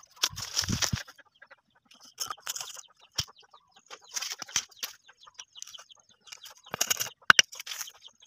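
Bursts of rustling and scraping with a few sharp knocks as hollow clay bricks and dry sticks are handled on dirt ground, with a thin high tone faintly in the background.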